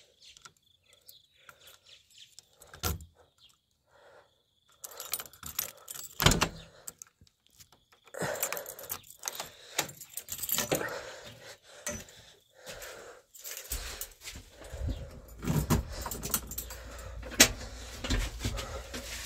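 Keys jangling and clicking in the cab door lock of a JCB backhoe loader, followed by clattering knocks as the door is opened and someone climbs into the cab. A low steady hum starts about 14 seconds in.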